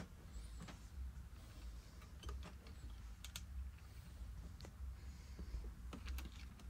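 Faint, scattered small clicks and taps of hands handling an amplifier circuit board and its metal faceplate, over a low steady hum.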